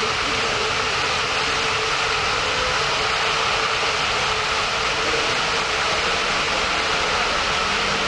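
Natural gas escaping under pressure from a ruptured gas valve and burning as a tall jet of flame: a loud, steady rushing noise that does not let up.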